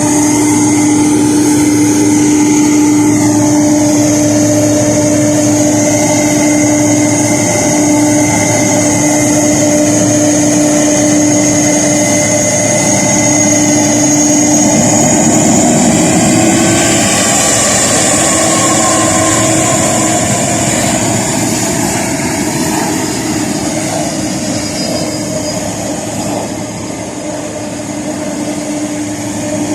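Boeing 767 jet engines running at taxi power: a steady whine with high-pitched tones over a rushing hiss. The whine rises briefly about halfway through, and the sound eases somewhat near the end.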